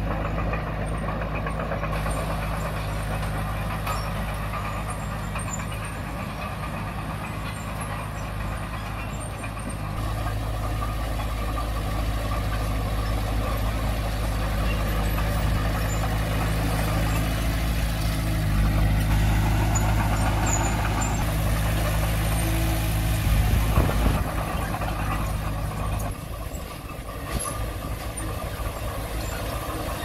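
Bulldozer diesel engine running steadily. It grows louder about a third of the way in, peaks briefly, then drops back near the end.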